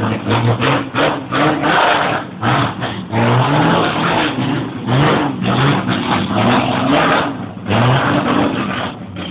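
Turismo Carretera race car engine revved hard again and again at low road speed, its pitch climbing and dropping with each throttle blip about once a second.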